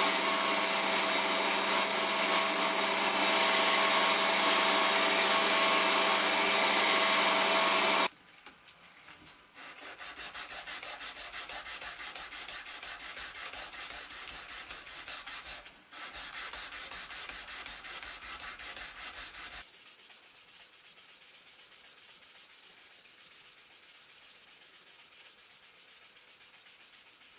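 Belt grinder running with a steady hum while the knife's bubinga wood handle is ground against the belt; it cuts off suddenly about eight seconds in. After that comes much quieter back-and-forth hand sanding of the wooden handle, growing softer in the last third as fine P2000 sandpaper is rubbed along it.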